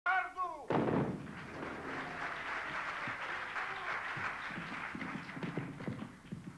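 A brief falling cry at the very start, then theatre audience applause lasting about six seconds and fading out near the end, with thuds of actors' feet running across the wooden stage in the last couple of seconds.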